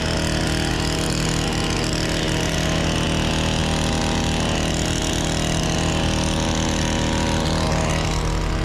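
Gas-powered hedge trimmer's small two-stroke engine running steadily while the crew cuts a cedar hedge.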